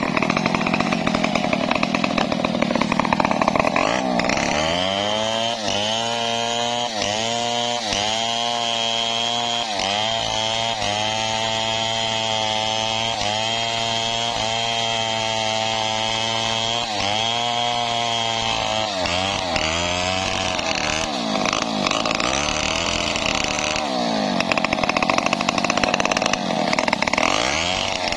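Stihl two-stroke chainsaw cutting through a log under load. The engine's pitch sags and recovers every second or two as the bar bites into the wood.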